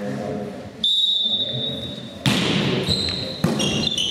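A referee's whistle is blown once for about a second and a half to start the rally. Then come two sharp volleyball hits, the serve and about a second later the return, each echoing in the sports hall. Sneakers squeak briefly on the hall floor near the end.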